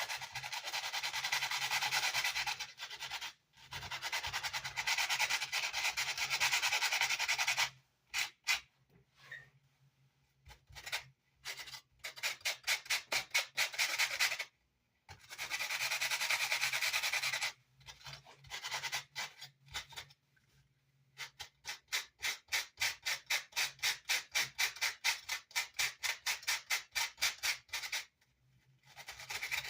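Hand sanding with coarse 40-grit sandpaper, scrubbing old chipboard remnants and glue off a guitar amp's baffle board. Long continuous rubs alternate with runs of quick back-and-forth strokes, about three a second.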